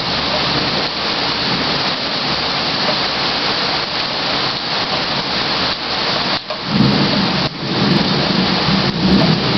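Rain falling steadily through a thunderstorm. About two-thirds of the way in, a low rumble of thunder comes in and keeps going.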